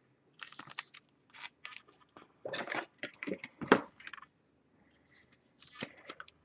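Clear plastic card sleeve crinkling in short irregular bursts as a trading card is slipped into protective sleeves.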